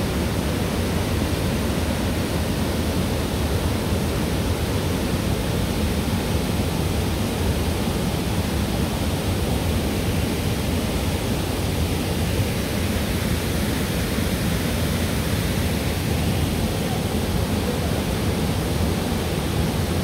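Waterfall pouring into a rock plunge pool: a steady, unbroken rushing of water, heaviest in the low end.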